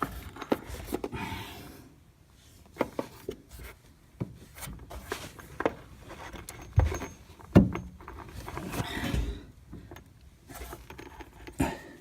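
A plastic push-fit fitting being worked onto copper pipe by hand: scattered clicks, knocks and rubbing, with two sharper knocks around the middle.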